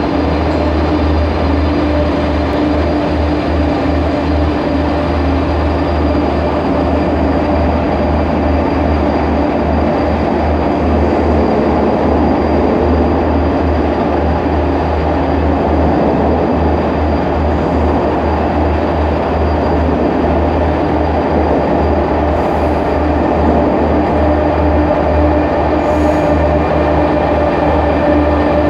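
Renfe AVE high-speed electric train pulling out of the station and rolling past at low speed: a steady loud rumble of wheels on rail with constant electric humming tones, getting a little louder near the end.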